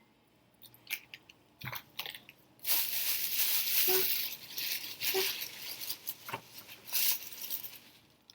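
Close-miked eating sounds: scattered clicks and smacks, with a stretch of crinkly rustling from about a third of the way in until past halfway and more short rustles near the end.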